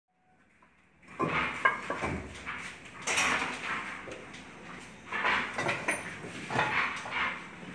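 Masonry work on a concrete-block wall: irregular scrapes and sharp clicks in bursts every second or two, starting about a second in.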